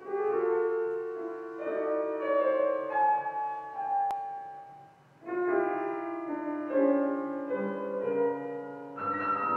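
Bösendorfer grand piano playing the opening of a classical art song, held chords changing every second or so. One phrase dies away about five seconds in, and a second phrase begins right after.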